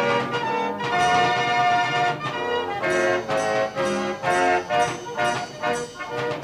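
Fairground organ playing a jaunty tune in short, detached chords, its pipes sounding like brass.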